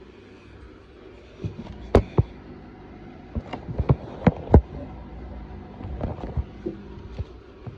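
Bosch washing machine running its spin/drain programme: a low steady hum with a run of irregular knocks and thuds from the drum, starting about a second and a half in and dying away near the end.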